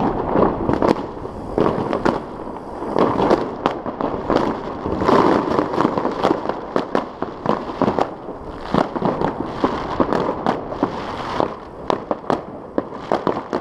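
Many New Year's fireworks salvos going off across the city at once: a dense, irregular rattle of bangs and crackles with no let-up.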